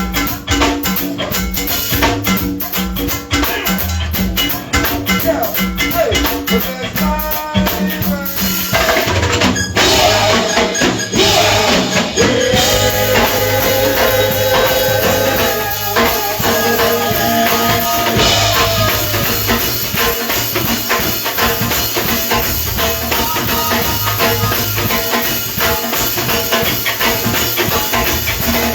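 A live band playing, with a drum kit keeping a steady beat under the music.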